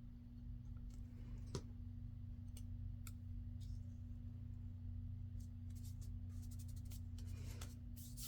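Scattered light clicks and taps from handling paper and craft supplies on a work table, turning into a quick run of clicks near the end, over a steady low electrical hum.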